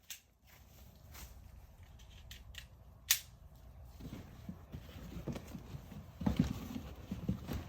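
One sharp pop about three seconds in, a shot from a modified FSC air-powered paintball launcher. In the last few seconds come irregular low thuds and crunches, footsteps.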